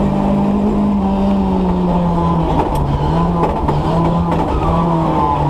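Rally car engine heard from inside the cabin, pulling hard at high revs; about halfway through the pitch drops and the note breaks up as the driver brakes and shifts down from fourth to second.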